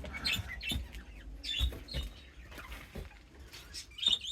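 Loose bird seed rustling and pattering as it is scooped and scattered by small hands, with a few short chirps from caged birds.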